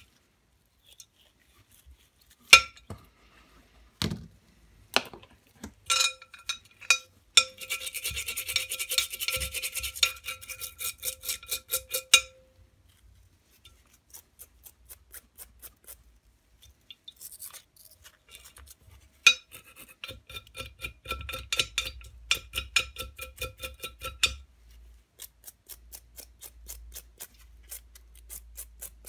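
Small rusty parts being scrubbed with brushes in a glass bowl of paraffin: bouts of quick, rhythmic scratchy strokes. A few sharp knocks of parts come in the first few seconds.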